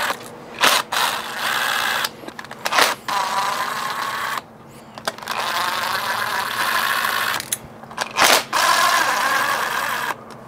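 Cordless drill-driver whirring in several runs of a second or two with short pauses between, backing screws out of a boat transducer's mounting bracket, with a few sharp clicks between runs.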